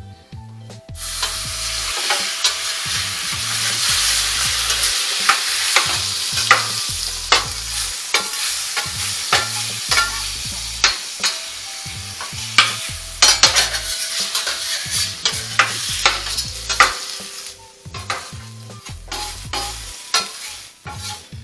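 Sliced vegetables sizzling loudly on a hot steel flat-top hibachi griddle as a metal spatula stirs and turns them, with frequent clicks and scrapes of the spatula on the steel. The sizzle sets in about a second in and thins out near the end.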